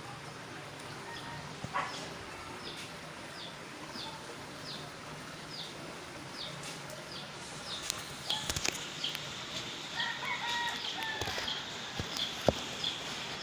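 A bird's short, high chirps repeat steadily, about one and a half a second. A rooster crows once about ten seconds in, and a few sharp clicks come near the end.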